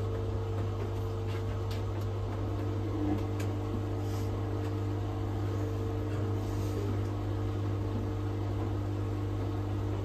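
Hoover Nextra top-loading washing machine humming steadily with a low hum and a couple of faint steady higher tones, its drum paused between spins on the spin-only programme.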